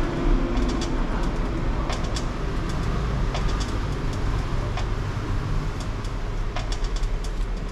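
Steady low rumble with scattered, irregular clicks and ticks as a screw-type strut spring compressor is cranked down by its T-handle on a coilover's coil spring.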